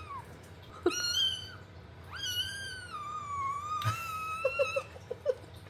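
Kitten meowing three times in a high, thin voice: a short meow, then a long drawn-out one, then a shorter one. A few short, soft low sounds follow near the end.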